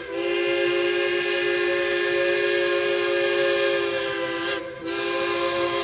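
Steam whistle of Durango & Silverton K-28 locomotive No. 473 sounding long, steady blasts, a chord of several notes, for a road grade crossing. It breaks off briefly at the start and again about four and a half seconds in before sounding again.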